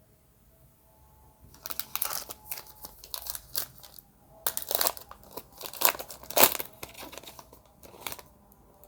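A trading-card pack wrapper being torn open and crinkled, in a run of sharp crackles that starts about a second and a half in and dies away a little after eight seconds.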